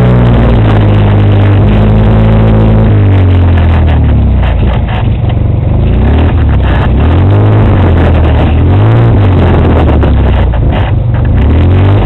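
Side-by-side UTV engine running loud and close. Its pitch holds steady at first, then rises and falls again and again as the throttle opens and closes.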